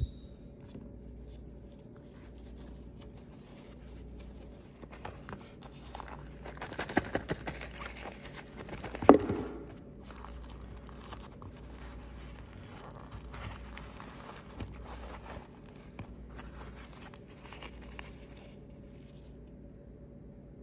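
Crinkling and rustling of a SOL Emergency Bivvy being worked out of its stuff sack, its thin reflective plastic sheet crackling under the hands. It is loudest in a run of crinkles from about five to ten seconds in, with one sharp crackle near the nine-second mark, and is faint and sparse otherwise.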